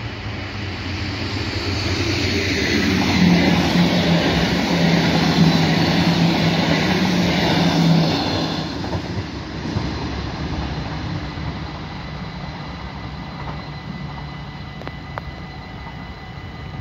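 NS Sprinter (SGMm) electric multiple unit passing at speed over a level crossing: wheels running on the rails, with a steady low hum. It rises over the first few seconds, is loudest for about five seconds while the train goes by, then fades away.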